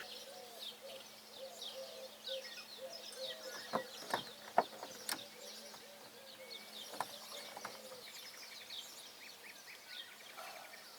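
Small birds chirping: many short, high calls that drop in pitch, repeated throughout. A few sharp clicks sound about four to five seconds in.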